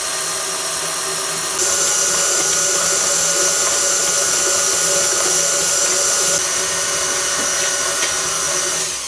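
KitchenAid Classic tilt-head stand mixer running with its wire whisk, beating butter, sugar and eggs into a smooth mass: a steady motor whir with a high whine, louder for a few seconds in the middle and dying away at the very end.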